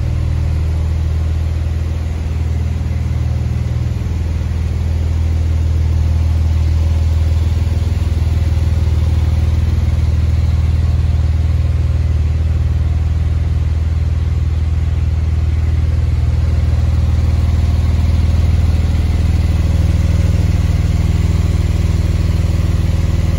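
Porsche 992 911's flat-six engine idling steadily, a deep, even hum with no revs.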